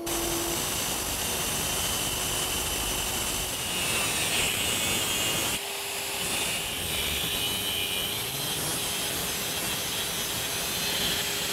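Handheld 4-inch cutoff wheel grinding through a NetGain electric motor's shaft, which a 12-volt battery spins against the wheel so that the cut runs true all the way round: a steady harsh grinding hiss with a high whine. It dips briefly about halfway through, then carries on.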